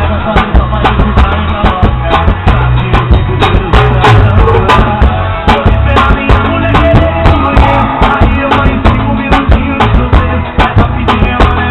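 Drum kit played with two thin wooden skewers instead of drumsticks: quick, sharp hits laid over a recorded song with a strong bass and steady beat.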